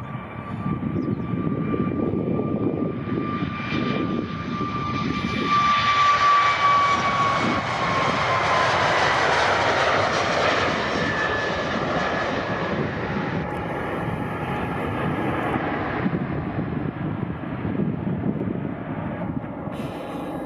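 Boeing 737-8 MAX's CFM LEAP-1B turbofans at takeoff thrust: a steady fan whine over a rumbling jet roar. It grows loudest about a third of the way in, and the whine slides down in pitch as the airliner passes and lifts off.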